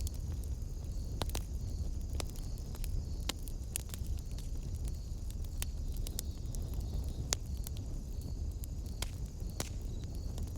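Wood fire burning in a fireplace: irregular sharp crackles and pops over a low, steady rumble of the flames.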